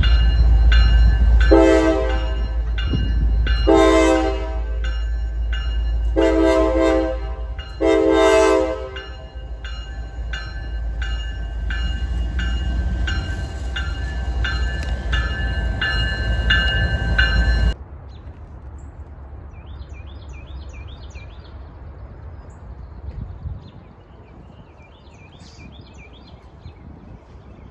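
Diesel freight train passing close by: the lead locomotive's air horn sounds four blasts in the first nine seconds over the engines' low rumble and an even, repeating clatter of wheels on the rails. The train sound cuts off abruptly about 18 seconds in, leaving birds chirping faintly.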